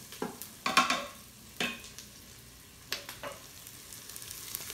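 Wooden spoon stirring and scraping across the bottom of an Instant Pot's stainless steel inner pot, in a few separate strokes, while onions and garlic sizzle in bacon grease on the sauté setting.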